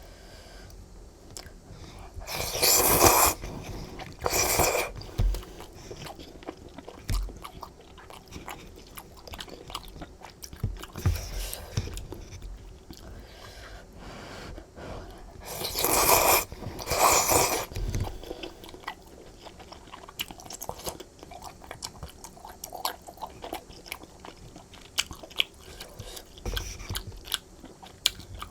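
Flat glass noodles being slurped and chewed up close: two pairs of loud slurps, a few seconds in and again just past halfway, with wet chewing and small mouth clicks between.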